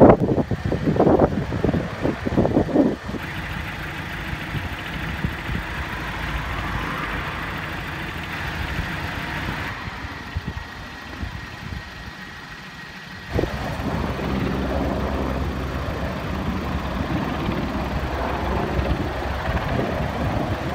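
Steady engine noise from idling emergency vehicles and a hovering helicopter, heard in several cut-together shots; the sound changes abruptly about 3, 10 and 13 seconds in.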